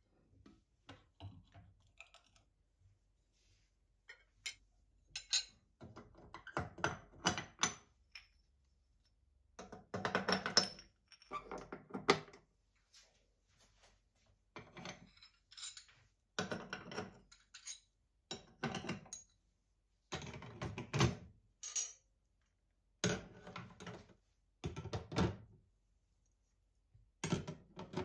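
Metal burner caps and black pan supports of a glass-top gas hob being set back in place one after another, in a run of separate knocks and clatters against the glass.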